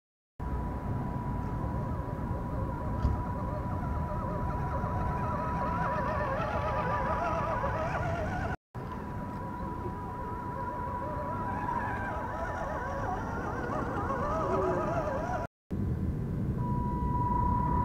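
Outdoor ambience with a low rumble, a steady thin high whine, and warbling chirps that come and go. It cuts out briefly twice.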